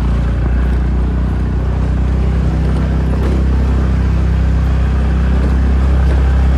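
Motor vehicle on the move: a loud, steady low rumble of engine and road noise that grows slightly louder toward the end.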